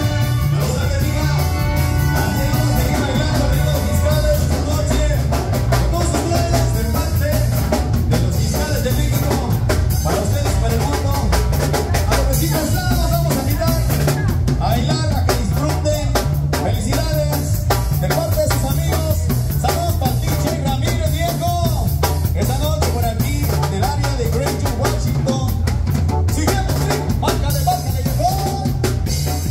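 Live band playing amplified dance music: electric bass, keyboard and drum kit with a steady, loud beat.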